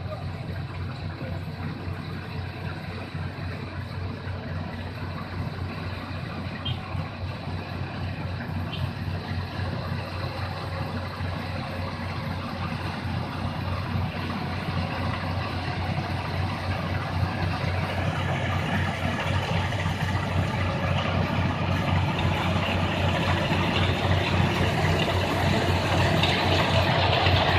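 Yanmar AW70 combine harvester's diesel engine running steadily with a low hum and mechanical clatter, growing gradually louder over the second half.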